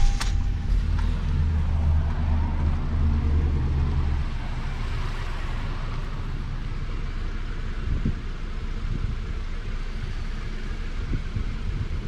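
2012 Honda Civic natural gas car's 1.8-litre four-cylinder engine just started and running at a raised idle, which drops to a lower, steady idle about four seconds in. The engine carries a P0303 misfire on cylinder 3.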